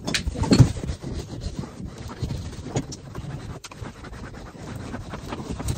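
A steam iron rubbing and sliding over cloth, with fabric rustling as clothes are ironed. There is a louder bump about half a second in and a few soft knocks later.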